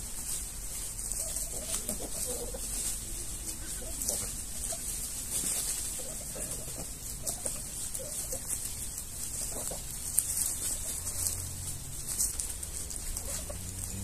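Flock of domestic geese calling softly while foraging: scattered short, low calls from several birds, over a steady high hiss.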